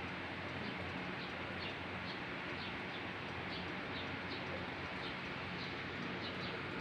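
60-inch N.E.M.C industrial ceiling fan running steadily: an even rush of moving air over a low motor hum, with short high chirps every half second or so on top.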